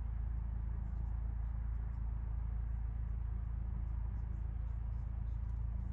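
Steady low rumble with a faint hiss over it, and no distinct event.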